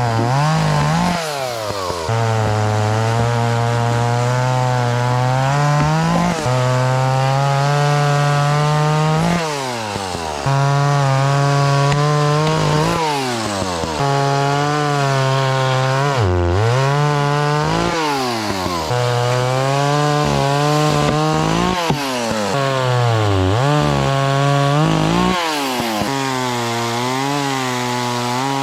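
Two-stroke chainsaw cutting up storm-felled trees, held at full throttle in stretches of a few seconds, its pitch dropping and climbing back each time the throttle is let off, about nine times.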